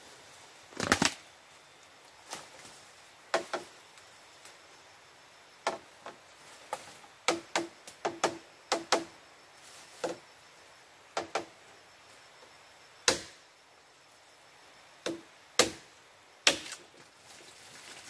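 Machete chopping at bamboo: about twenty sharp strokes at uneven intervals, some in quick pairs, several with a brief ring after the blow.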